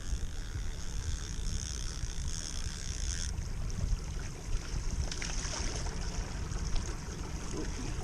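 Wind buffeting the microphone over water splashing against a boat, a steady low rumble with a hiss on top.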